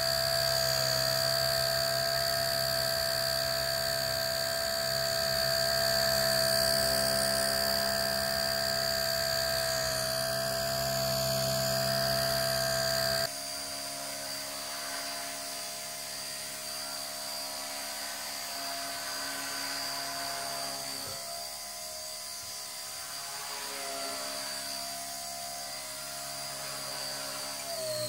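Blade Nano S2 micro electric RC helicopter flying, its motors and rotors giving a steady high-pitched whine over a buzz. About 13 seconds in the sound drops suddenly quieter, then goes on with the same whine, wavering slightly near the end.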